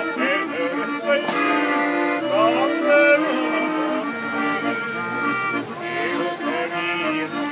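Hand-cranked barrel organ playing a tune in held, reedy chords and melody notes.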